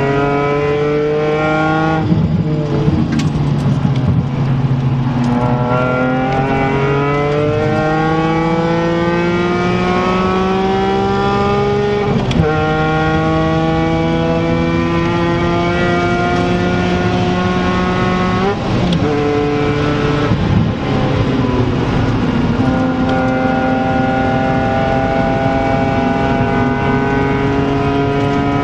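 BMW Z4 M Coupé's S54B32 3.2-litre straight-six at full throttle, heard from inside the cabin, pulling hard through the gears: long rising sweeps in pitch that drop sharply at upshifts about 12 and 18 seconds in. Around 2 to 5 seconds and 19 to 23 seconds in, the note breaks up as the driver lifts off and shifts for corners.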